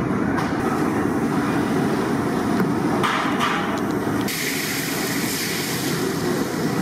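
Steady roar of a busy commercial kitchen, with gas burners running under large woks of oil. A few knocks of steel vessels come about three seconds in, and a brighter hiss joins at about four seconds.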